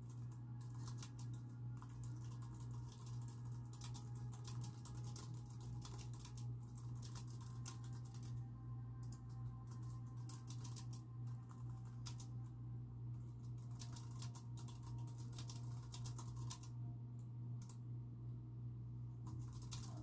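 Fast typing on a computer keyboard, keys clicking in quick runs broken by short pauses, over a steady low hum.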